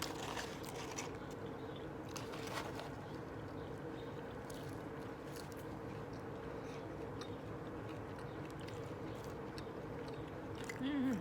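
Close-up chewing of a burger, with soft, scattered mouth clicks over a steady background hum.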